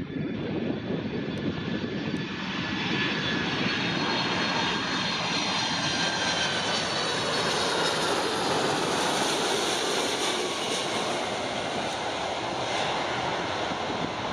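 Jet engines of a four-engined Boeing 747-400 passing low overhead on final approach: a loud, steady jet roar with a whine that falls in pitch as the aircraft goes by.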